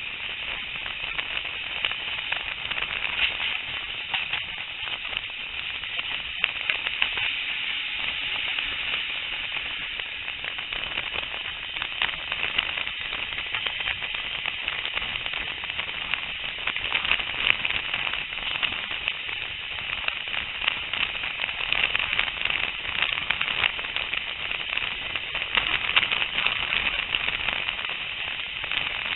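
Steady rushing, crackling noise of a train running at speed, heard from an open carriage window, with fine clicks throughout and no clear rhythm.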